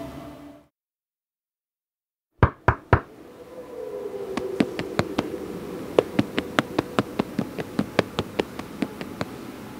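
Three sharp knocks in quick succession after a moment of silence. They are followed by a run of lighter, unevenly spaced taps over a faint low hum that sinks in pitch.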